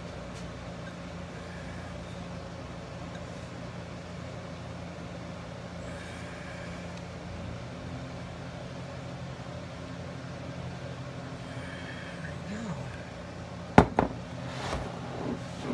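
A steady low hum, then near the end one sharp knock as a plastic measuring cup of white glue is set down on the countertop, followed by a few lighter knocks.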